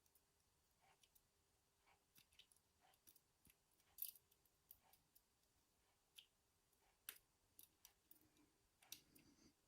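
Faint, scattered small clicks and ticks of tweezers and lock pins being handled while pins are loaded into a Yale euro cylinder, the loudest about 4 seconds in.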